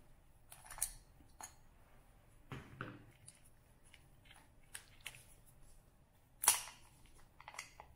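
Scattered light clicks and short rustles of indicator wires and plastic bullet connectors being pulled out through a motorcycle headlight shell by gloved hands. The loudest rustle comes about six and a half seconds in.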